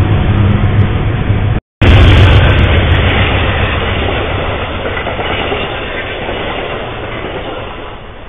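Passenger train cars rolling past close by on the rails. A short silent gap about two seconds in where one trail-camera clip ends and the next begins. Then an Amtrak train's cars pass, their sound fading away as the end of the train goes by.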